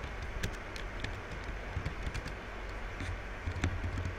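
Scattered, irregular clicks of computer keyboard keys and a mouse, the loudest a little past three seconds in, over a steady low hum.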